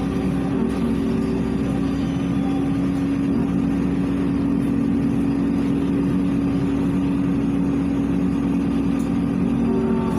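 LiAZ 5292.67 city bus cruising at steady speed, heard from inside the passenger cabin: a constant engine and road drone with a steady humming tone.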